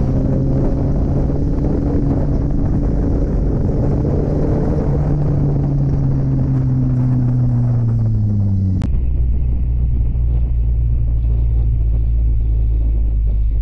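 Kawasaki Ninja 400 parallel-twin engine running at steady revs with wind rush, its pitch then falling as the throttle is rolled off. About nine seconds in, the sound cuts abruptly to a lower, steady engine drone and rumble.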